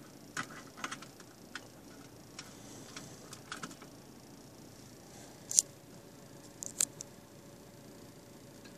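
Scattered light clicks and taps from a phone being handled, with two sharper clicks about five and a half and seven seconds in.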